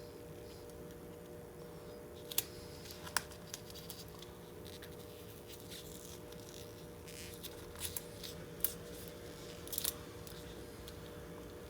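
Small sharp clicks and scratchy hand-work noises from stripping the polarizer film off an LCD panel, a handful of separate snaps over a steady electrical hum.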